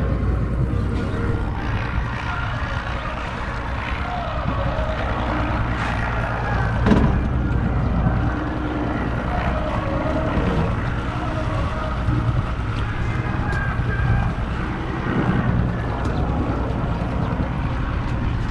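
Fishing boat's engine running steadily under wind and water noise, with a short knock about seven seconds in.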